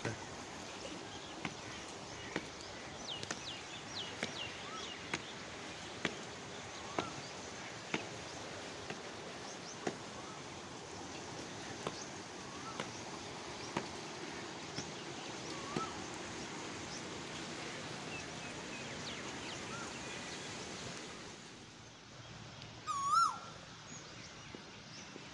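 Steady rush of fast-flowing canal water below a bridge, with birds chirping over it. Near the end the water sound drops away and a bird calls loudly twice, each a short hooked call.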